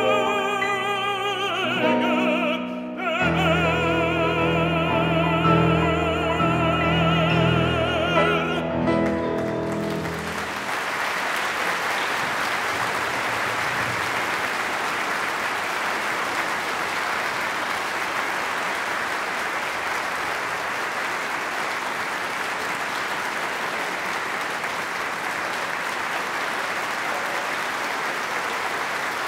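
A male solo singer with vibrato, backed by an orchestra, holds a long final note that ends about ten seconds in. An audience then applauds steadily.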